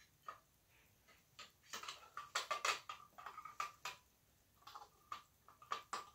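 Small plastic and metal parts of a Simplex T-bar fire alarm pull station clicking and tapping as they are handled. The clicks are sparse at first and turn into a dense run about two seconds in. After a short pause, more clicking comes near the end.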